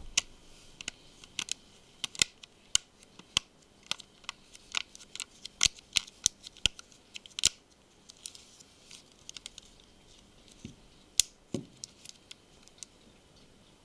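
Plastic snap-on rear battery cover of a Samsung Galaxy Note 2 being pressed on around its edges, its clips snapping into place as many sharp clicks. The clicks come thick over the first half and more scattered later.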